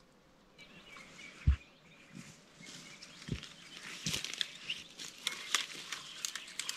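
Footsteps through forest undergrowth and dry deadwood crackling and snapping as an armful of branches is carried, with a few dull thumps in the first half, the loudest about a second and a half in, and dense crackling from about four seconds in.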